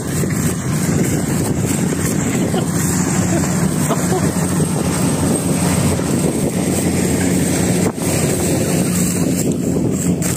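Kubota rice combine harvester's diesel engine running steadily with a low hum, with wind on the microphone.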